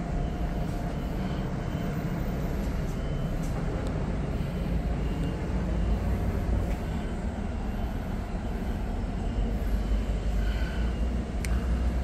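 Steady low rumble of distant vehicles, a little louder in the second half, with a few faint clicks.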